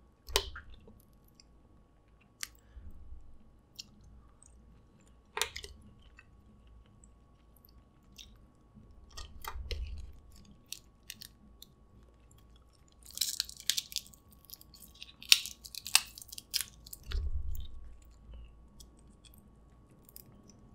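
Eating sounds: snow crab shells cracked and picked apart by hand, with soft chewing. Scattered sharp clicks run throughout, and two bursts of crackling come in the second half.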